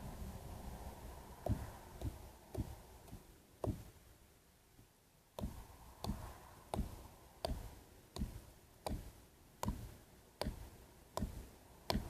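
A series of sharp knocks, about one every three quarters of a second, with a pause of about a second and a half around four seconds in. No chainsaw engine is heard.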